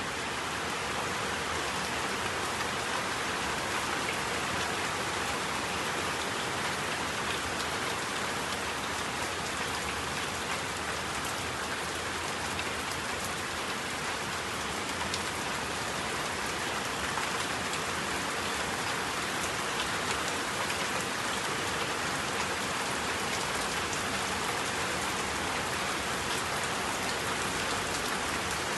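A steady, even hiss of noise with fine crackle in it, unchanging throughout.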